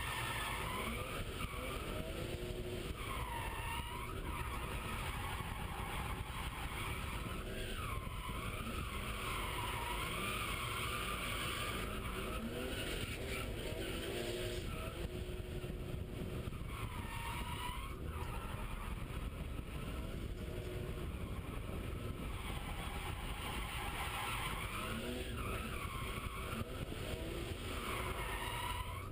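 BMW E36 M3's straight-six engine revving up and down hard, heard from inside the cabin, with the tyres squealing in long wavering stretches as the car drifts.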